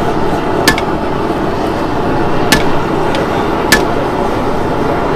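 Hand hammer striking hot steel on an anvil: three sharp blows a second or more apart, each with a short metallic ring, and a fourth right at the end, over a steady background noise.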